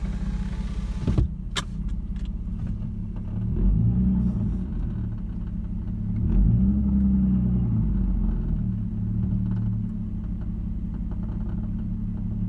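Inside the cabin of a 2009 Nissan Maxima, with its 3.5-litre V6 running: a power window hums up and stops with a couple of sharp clicks about a second in. Then the engine rumbles low while the car reverses and brakes, swelling twice. Under it is the clicking from the passenger-side engine bay that comes whenever the car brakes or is in reverse, which the owner guesses is the water pump or something loose.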